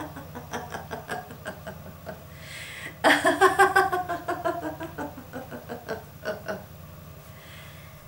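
A woman laughing in quick repeated "ha" pulses, loudest in a burst about three seconds in, falling in pitch and dying away a few seconds later.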